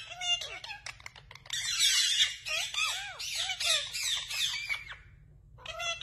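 Indian ringneck parakeets calling: a quick run of short, arching chirps with a harsher squawking stretch a couple of seconds in, breaking off about five seconds in, then resuming briefly near the end.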